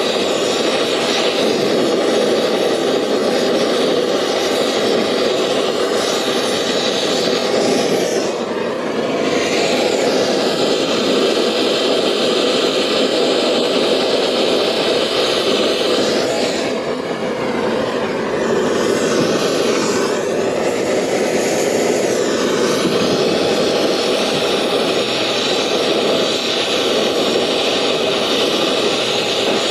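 Brazing torch flame burning against a copper refrigerant joint: a loud, steady rushing sound that briefly dips and changes character about 8 seconds and again about 17 seconds in. The joint being brazed is the source of a refrigerant leak.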